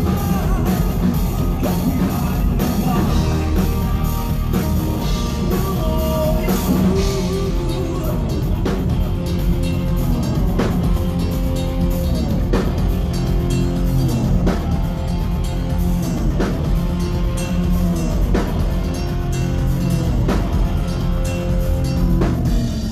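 Progressive metal band playing live at full volume: distorted guitars, bass and drum kit with a singer, hard accents about every two seconds, and the band stopping suddenly near the end as the song finishes.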